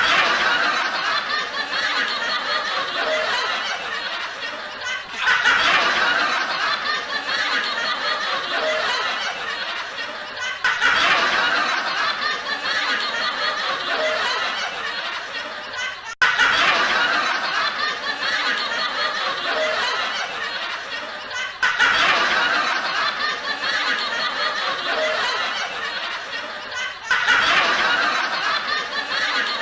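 Canned sitcom laugh track: people laughing and chuckling, the same clip of about five and a half seconds looped over and over, each repeat opening with a louder swell.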